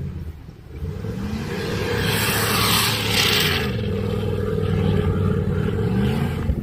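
Jeep Grand Cherokee WJ engine working hard off-road, its pitch rising and falling as the revs change. A loud rushing hiss joins it from about two to three and a half seconds in.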